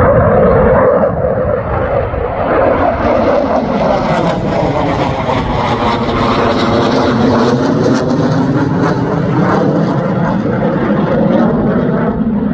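Loud jet-engine noise from a fighter jet flying overhead and climbing away, with a sharp crackling in the roar and a slow sweeping rise and fall in its tone through the middle.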